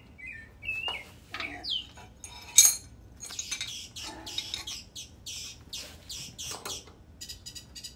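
Small birds chirping briefly, then a sharp metallic clink and a string of short scraping, clinking sounds of steel hardware being handled: a nut and washers being worked onto a length of all-thread. A run of small rapid clicks comes near the end.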